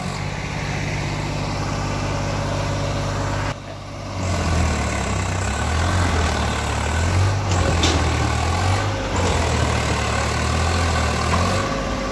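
Swaraj 855 FE tractor's three-cylinder diesel engine running under heavy load, towing a full water tanker stuck in soft earth; the engine note rises and wavers after a brief drop about a third of the way in.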